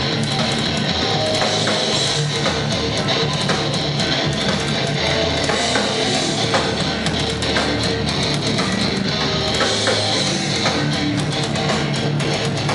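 Hardcore punk band playing live, heard as a loud, distorted rock recording: electric guitars, bass and drums in a fast instrumental passage with no vocals.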